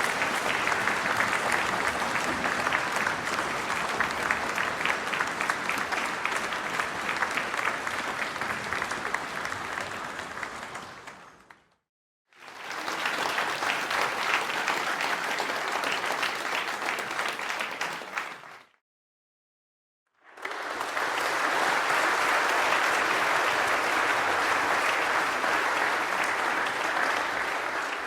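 Audience applause, many hands clapping steadily: three separate stretches, the first and second fading out and each followed by a brief gap of silence, the third starting about twenty seconds in.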